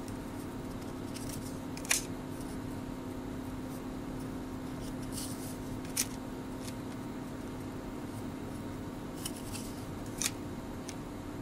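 Cardboard 1988 Donruss baseball cards being flipped one at a time to the back of a hand-held stack: a soft rustle, then a sharp papery snap as each card clears the stack, three times about four seconds apart. A steady low hum runs underneath.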